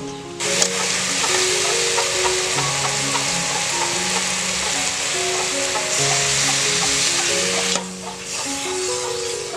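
Pieces of pig ear sizzling in a hot aluminium pot as they are stirred with a metal ladle. The sizzle starts about half a second in and cuts off suddenly near the end.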